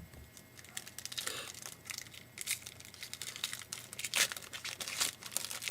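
Trading card pack's foil wrapper and cards being handled: a steady run of crinkling and rustling, with sharper crackles about 2.5, 4 and 5 seconds in.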